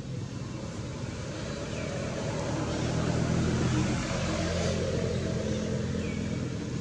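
A motor vehicle's engine running close by, growing louder to about the middle and then easing off, as when it passes.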